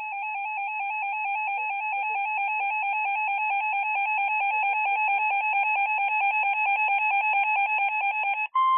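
Emergency Alert System attention signal: a harsh two-tone alarm with a fast, even flutter, held for about eight and a half seconds and growing slightly louder. It marks the start of a new alert. It cuts off near the end, and a steady higher single tone follows.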